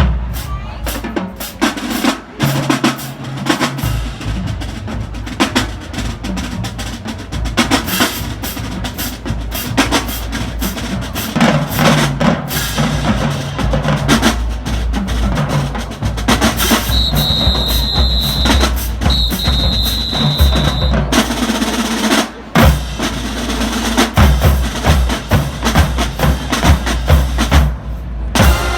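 Marching band drumline playing a marching cadence: rapid snare drum patterns over a steady bass drum pulse. Two long, high, steady tones sound about two-thirds of the way through.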